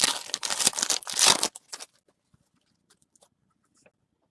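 Trading-card pack wrapper crinkling and tearing for about a second and a half, followed by a few faint ticks of cards being handled.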